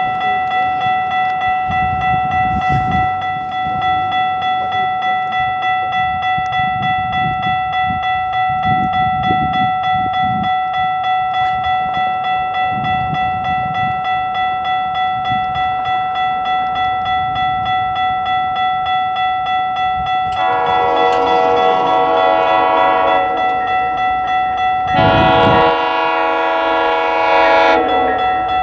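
Railway level-crossing warning bells ringing steadily with a regular pulse while a GO train rumbles through the station. About two-thirds of the way in, the train's horn sounds two long chord blasts a couple of seconds apart.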